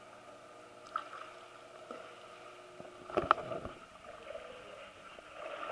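Indoor pool water lapping and gurgling steadily, with a brief sharp noise about a second in and a louder one about three seconds in.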